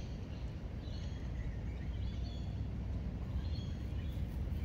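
Outdoor park ambience: birds chirping now and then, high and brief, over a steady low rumble.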